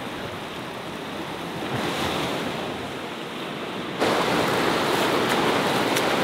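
Ocean surf breaking and washing up a beach, with a swell of a wave about two seconds in. About four seconds in it switches abruptly to louder, closer shallow water washing and swirling.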